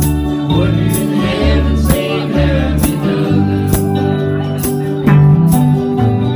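Acoustic guitars and other stringed instruments strummed together by a small group, keeping a steady beat, with a man's voice singing for a couple of seconds about a second in.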